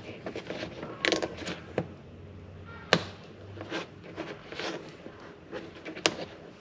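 Hands fitting mounting straps to an LED light bar: a cluster of small clicks about a second in, two single sharp clicks later, and light rustling of plastic between.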